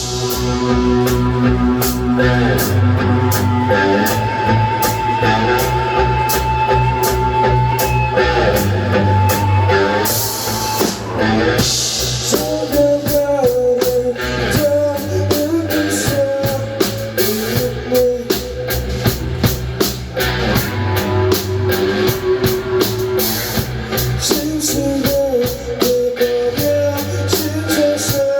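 Rock band playing live: a drum kit keeping a steady beat under electric guitar and bass.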